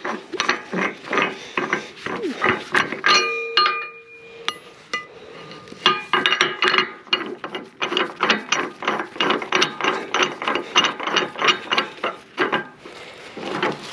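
Rapid, ratchet-like metallic clicking mixed with clanks of metal hardware. A short metallic ring sounds about three seconds in.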